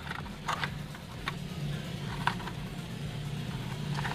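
Steady low hum with a few short, light clicks from a small cardboard box of firecrackers being handled and turned over in the hands.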